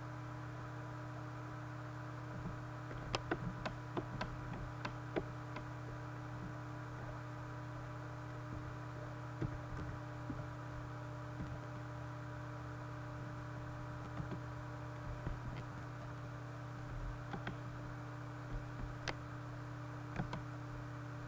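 Computer keyboard and mouse clicks in small scattered clusters, over a steady electrical hum.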